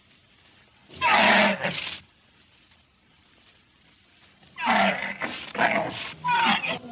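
An animal calling: one harsh call about a second in, then a run of several short calls near the end.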